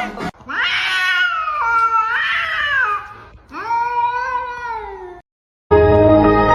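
A cat giving two long, drawn-out meows, the first wavering up and down in pitch, the second falling away at its end. After a brief break, music with steady held notes starts near the end.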